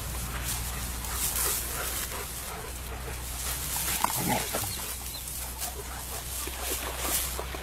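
German Shepherds scuffling on grass as one dog corrects another, with a single short dog vocal sound about four seconds in.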